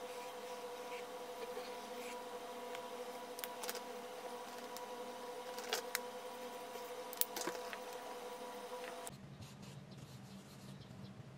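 Ohuhu marker nib rubbing over sketchbook paper while colouring, with a few sharp clicks, over a steady background hum that drops to a lower hum about nine seconds in.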